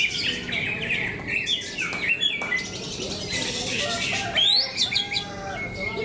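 Several caged green leafbirds (cucak ijo) singing at once in competition, a dense, unbroken jumble of quick chirps and whistled up-and-down notes over a low background murmur.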